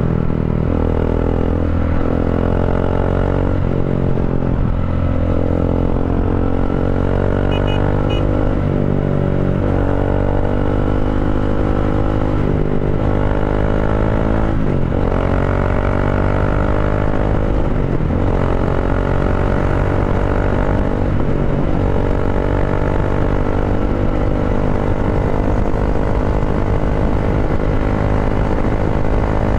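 Bajaj Dominar 400's single-cylinder engine running through an Akrapovic-style slip-on muffler, with its catalytic converter replaced by a resonator, accelerating at highway speed. The exhaust note climbs in pitch and drops back sharply several times as the bike pulls.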